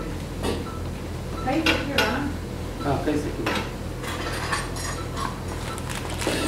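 Irregular metal clinks and clanks of a head-frame clamp being fitted onto the operating table's metal side rail, over a steady low hum.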